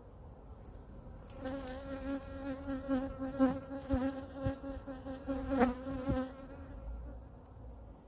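A honey bee buzzing close by, its pitch wavering, starting a little over a second in and stopping about six seconds in. A few light knocks come from wooden hive frames being handled.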